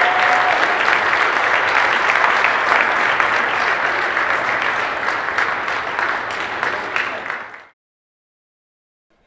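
Crowd applauding steadily with a dense patter of claps, fading out and cutting to silence about three-quarters of the way through.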